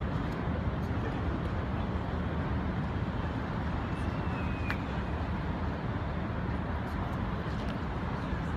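Steady low rumble of distant city traffic, with a faint brief chirp about four seconds in.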